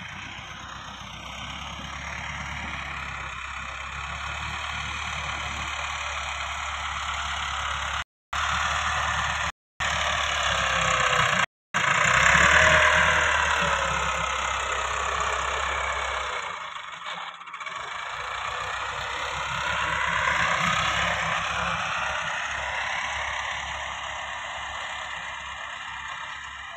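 Massey Ferguson 260 tractor's diesel engine working as it pushes soil with its front blade. The engine note rises and falls, and it is loudest as the tractor comes close about halfway through. The sound cuts out briefly three times shortly before that.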